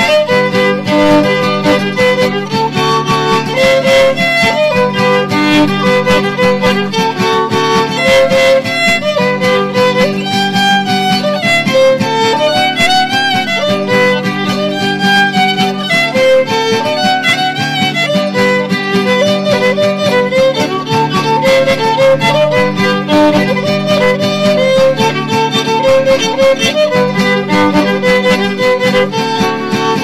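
Background instrumental music with a violin melody over a steady accompaniment.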